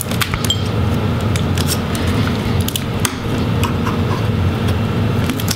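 Metal laptop display hinges being swivelled up by hand on the palm-rest assembly, giving scattered small clicks and taps of metal and plastic over a steady low hum.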